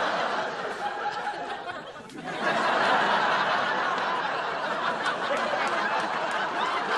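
Sitcom studio audience laughing in a long wave that dies down about two seconds in, then swells into a second wave of laughter that carries on.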